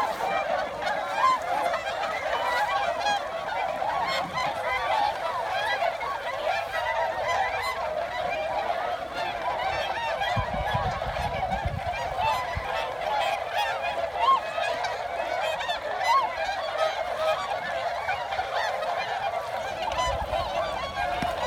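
A large flock of swans calling all at once: a dense, unbroken chorus of overlapping honking calls.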